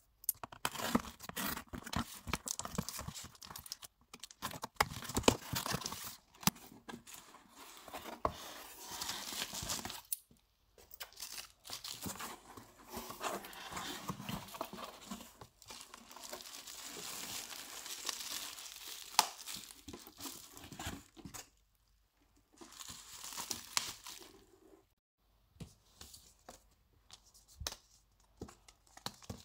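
Packing tape peeled and torn off a cardboard shipping box, then cardboard flaps opened and bubble wrap crinkled and rustled by hand, in irregular bursts of tearing, crinkling and scraping with a few short pauses.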